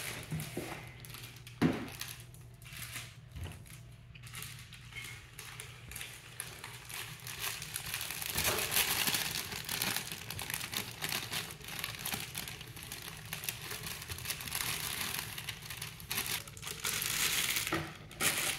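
A plastic bag of dry cake mix crinkling as it is handled and opened, with a light knock about a second and a half in. About eight seconds in the rustling grows denser and steadier as the mix is tipped out of the bag into a steel mixing bowl.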